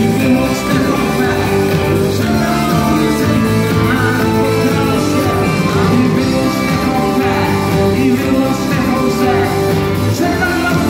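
Rock band playing live through a PA, led by electric guitar, with a male lead vocal.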